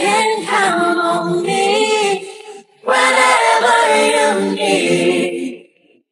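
A cappella female vocal with no beat under it: two sung phrases with a short break between them, ending about five and a half seconds in.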